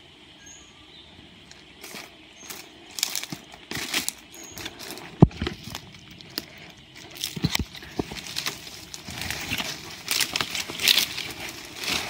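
Footsteps crunching and rustling through dry leaf litter and twigs on a rainforest floor, with undergrowth brushing past, in an irregular walking rhythm. One sharp crack about five seconds in is the loudest sound.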